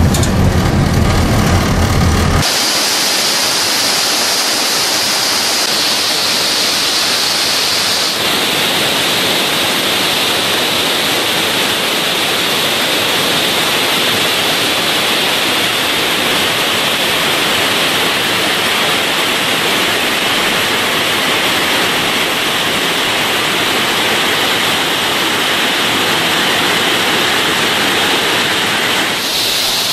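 Tamaraw Falls in spate after heavy rains, muddy water pouring over rock and boulders in a loud, steady rush. For the first two seconds or so, a low rumble of a car's cabin on the move comes before the water.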